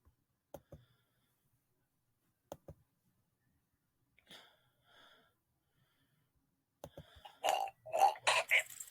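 Mostly quiet, with a few faint clicks early on; from about seven seconds in, a string of short non-word vocal sounds from a person, like breaths, grunts or sighs, growing louder.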